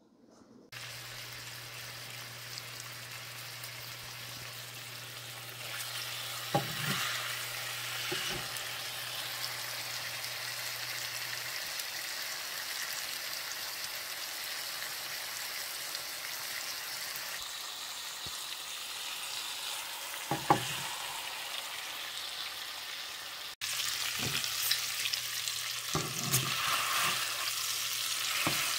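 Bacon sizzling in a granite-coated nonstick frying pan under a cast-iron bacon press: a steady frying hiss, broken by a few brief knocks.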